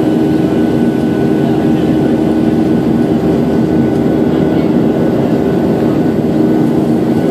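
Airliner cabin noise in flight: a steady, loud drone of engine and airflow noise with a few constant low hums, heard from inside the cabin.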